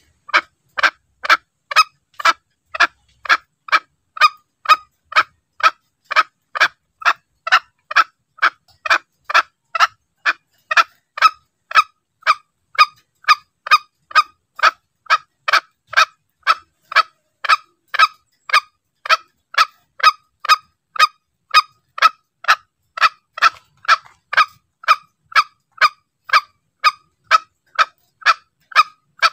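Green junglefowl calls used as a hunting lure: short calls repeated evenly about twice a second, without a break.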